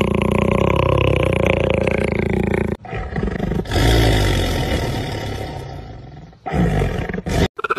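A leopard growls continuously with a fast rattling pulse, then stops abruptly. A black panther follows with a loud, breathy snarl that fades over a couple of seconds, then a second, shorter snarl near the end.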